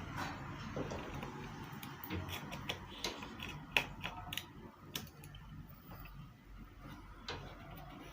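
Scattered light clicks and taps of small metal and plastic parts being handled and fitted while an electric immersion water heater is reassembled, with one sharper click about four seconds in.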